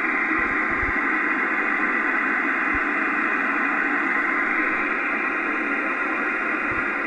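Amateur radio transceiver's speaker giving a steady hiss of band noise, with no voice in it: the other station's signal has faded out.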